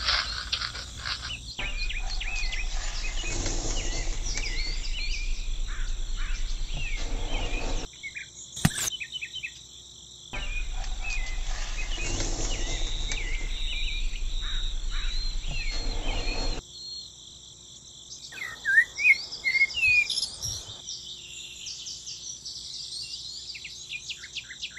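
Birds chirping and insects trilling, with a steady low hum and hiss in two stretches of about six seconds each that start and stop abruptly. A single sharp click comes about nine seconds in.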